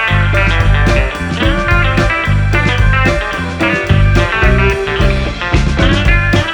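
Background music: guitar-led rock with a steady beat and bass.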